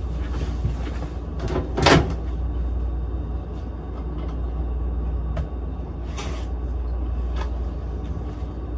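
Steady low rumble of a moving vehicle, with one loud sharp clack about two seconds in and a few fainter knocks later.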